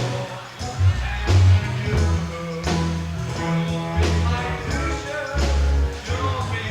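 Live rock band playing, with sung vocals over bass and drums: a doo-wop-style cover, heard through a raw audience recording.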